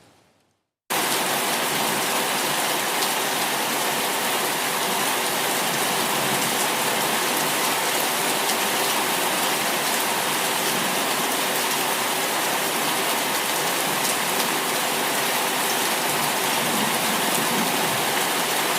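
Heavy rain pouring down steadily, starting abruptly about a second in after a moment of silence.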